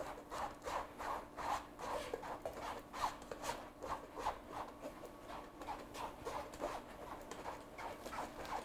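A rubber scraper pressed and dragged across a fine-mesh drum sieve, forcing potato through the mesh for purée. It makes short, repeated scraping strokes, about three a second.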